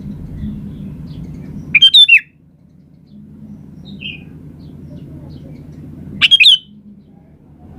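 Sooty-headed bulbul (kutilang) singing two short, loud phrases of a few quick notes, about four seconds apart, with a faint single note between them. A steady low hum runs underneath.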